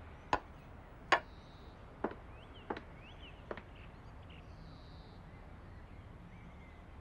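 Five sharp clicks or knocks, spaced a little under a second apart over the first four seconds; the second is the loudest and the last ones fade. They sit over quiet room tone with faint bird chirps in the background.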